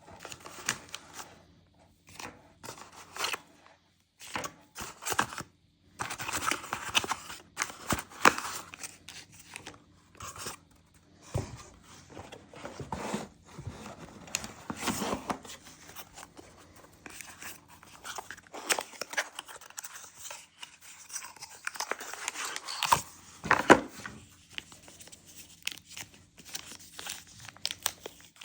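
Product packaging being unpacked by hand: irregular tearing, crinkling and rustling of wrap and paper, with small clicks and knocks as pieces are handled and set down.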